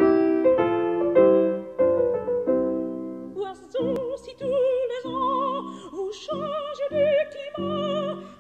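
Solo piano plays the introduction of a classical art song, then a soprano enters about three and a half seconds in, singing with a wide vibrato over the piano accompaniment.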